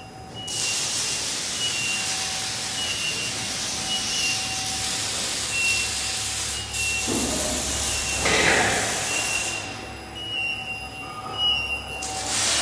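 Welding arc hissing and crackling in a steady stream. It strikes about half a second in, stops about ten seconds in, and strikes again near the end. A faint steady high tone runs beneath it.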